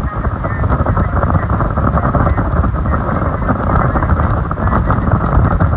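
Speedboat under way at speed: heavy wind buffeting the microphone over the boat's engine and the hull running on the water, a loud, steady noise.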